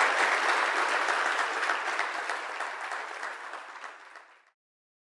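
Audience applauding, a dense patter of many hands that fades away over a couple of seconds and cuts off abruptly about four and a half seconds in.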